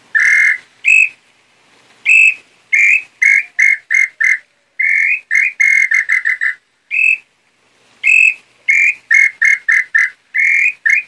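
Pio garganta, a hand-made wooden call imitating the nambu pé-roxo tinamou, blown in repeated phrases: a clear whistled note or two, then quick runs of short notes that speed up. The maker says this compressed, bowl-less call suffers from humidity in rainy weather.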